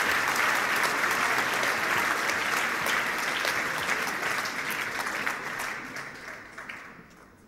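Audience applauding, steady at first, then dying away over the last two seconds or so.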